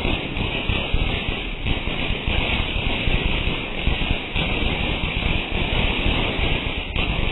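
Ground fountain firework spraying sparks, hissing and crackling steadily without a break.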